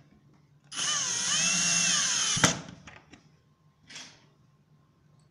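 Cordless drill driving a screw through an angled pocket hole into a melamine panel: the motor whines for about two seconds, its pitch dipping and rising under load, and stops with a sharp click as the screw seats. A brief faint rustle follows about four seconds in.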